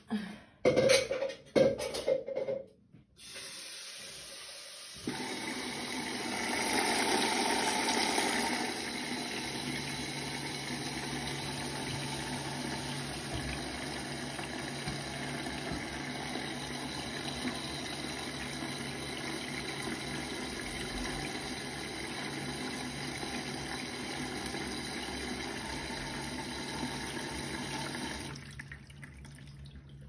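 Bosch front-loading washing machine filling: water rushes steadily into the drum through the detergent drawer, after a few short knocks at the start, with a low hum joining in. The flow stops shortly before the end.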